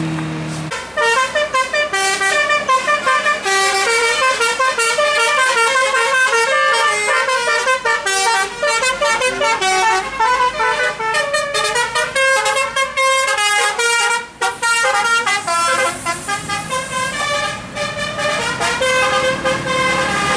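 Tour bus's telolet (basuri) horn playing a melody of quick, changing notes, starting about a second in and going on with a short break near the middle.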